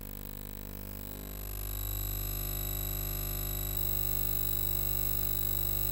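A steady electronic drone of many held tones, swelling louder about a second and a half in and then holding level.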